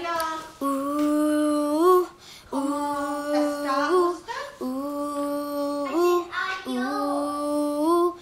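A young girl singing unaccompanied: four long held notes, each sliding upward at its end, with short breaths between them.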